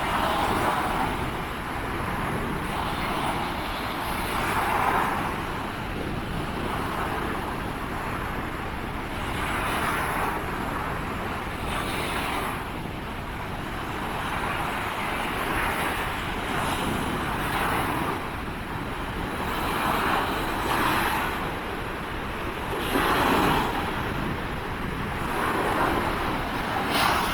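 Waves breaking and washing on a beach in stormy weather, with wind: a steady rushing noise that swells every few seconds.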